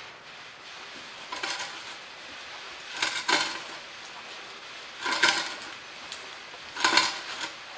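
Antique hand-cranked boring machine working its auger into a wooden board: four short scraping, clinking bursts, about every two seconds, as the crank is turned.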